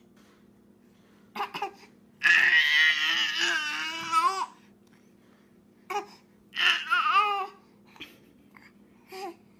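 Infant crying in bursts: a short whimper, then a long wail of about two seconds, and a second cry a couple of seconds later, with short squeals between. The baby is crying in protest because her twin has taken her pacifier.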